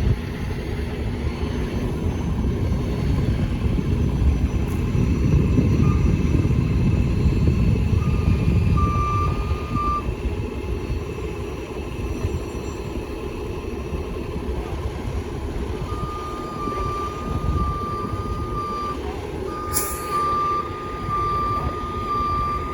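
Heavy diesel truck engines running, loudest a few seconds in, with a truck's reversing alarm beeping briefly around eight seconds and steadily through the last third. A short burst of air hiss comes near the end.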